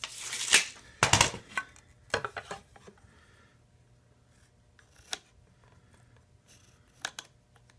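A tape measure blade retracting with a rising rush that snaps shut about half a second in, then a knock about a second in as a plastic speed square is set against a pine 2x4. After that come a few light clicks and taps while a pencil line is marked along the square.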